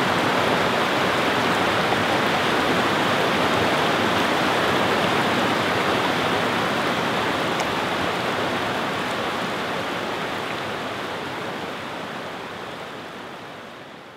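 Shallow stream rushing steadily over flat rock ledges and small cascades, fading out over the last few seconds.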